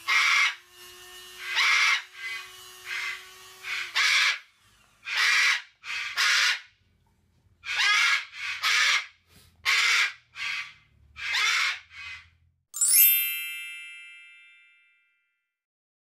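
A cockatoo screeching over and over, about fifteen harsh calls in quick succession. Near the end a bright chime rings out and fades away over about two seconds.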